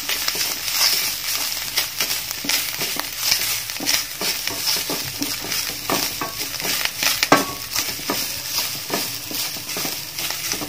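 Grated coconut sizzling steadily in hot ghee in a stainless steel pan, stirred with a wooden spatula that scrapes and taps against the pan many times.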